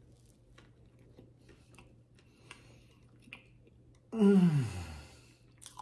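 A person chewing a soft White Castle slider with faint, wet mouth clicks, then, about four seconds in, a loud 'mmm' of enjoyment that falls in pitch over about a second.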